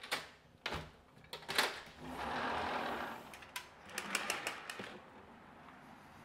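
Sliding patio door being opened: a run of clicks and knocks with a rolling rush as it slides. About five seconds in, a steady hum of freeway traffic comes in through the open doorway.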